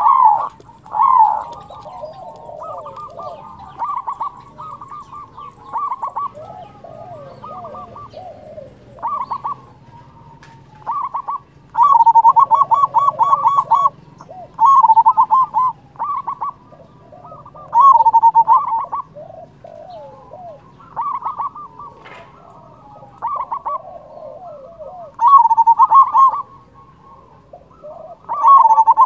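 Local zebra dove (perkutut) singing: loud phrases of fast stuttering coo notes repeat every two to three seconds, with softer falling coos between them.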